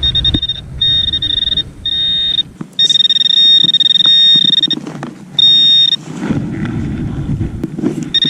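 Handheld metal-detecting pinpointer sounding a steady high-pitched tone in five separate stretches, the longest about two seconds, as it is held over a target in loose soil; scraping and rustling of dirt between and after the tones.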